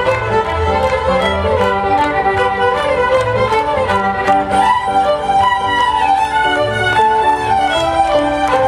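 A large group of fiddles playing a tune together, with a bass line of low notes underneath.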